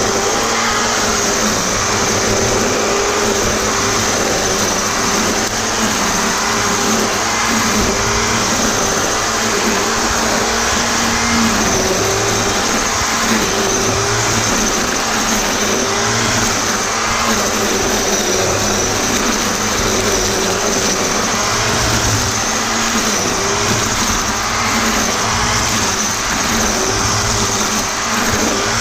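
Black & Decker GL7300 700-watt electric string trimmer running steadily, its motor giving a high, even whine over the hiss of the spinning line.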